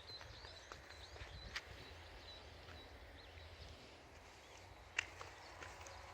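Faint high bird chirps in the first second or so over quiet outdoor ambience, with a few sharp clicks, the loudest about five seconds in.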